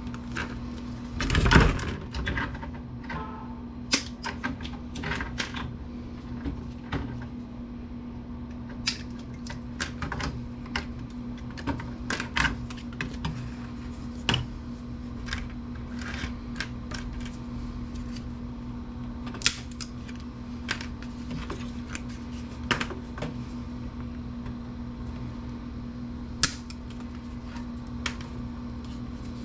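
Irregular sharp clicks and small knocks of plastic connector housings and metal pins being pried apart and handled, with one louder knock about a second and a half in, over a steady low hum.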